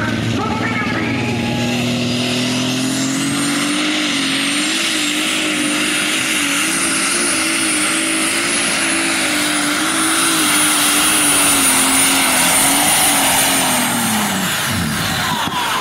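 John Deere 8330 pulling tractor making a pull under full load: the engine climbs in pitch about a second in and holds at high revs with a wavering pitch, with a high whistle over it, then winds down near the end.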